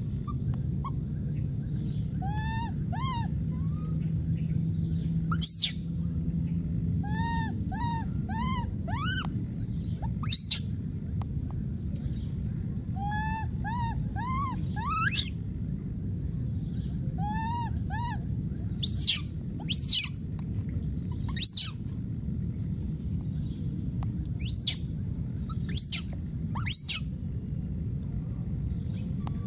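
A baby monkey giving short, arched, whistle-like calls, repeated in runs of two to four every few seconds: the contact calls of an infant calling for a companion. Several brief, sharp, high-pitched squeaks stand out as the loudest sounds, with a steady high drone underneath.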